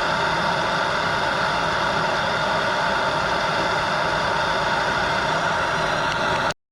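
Handheld propane torch burning with a steady, loud hiss, heating a rusted, seized nut to help break it loose. It cuts off suddenly near the end.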